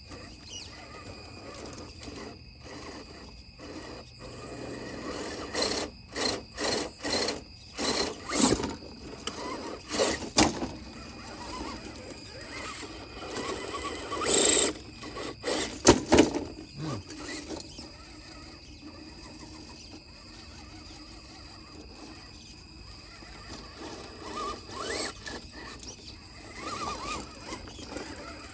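Laegendary Grando 1:10 RC trail crawler climbing stone steps: its electric drivetrain runs in short bursts while the tyres and chassis scrape and knock against the stone. The knocks come in clusters, loudest about a quarter of the way in and again around the middle.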